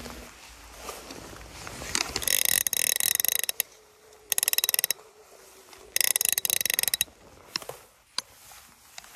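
Fly reel's click-and-pawl ratchet buzzing in three short bursts of rapid clicks as the spool turns, followed by a couple of faint knocks.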